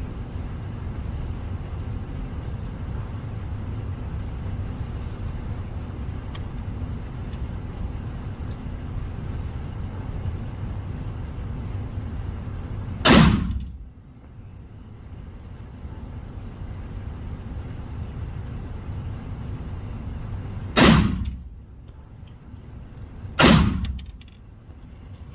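Three gunshots from a firearm being fired at a target: one about halfway through, then two more a couple of seconds apart near the end, each with a short echoing tail, over a steady low rumble.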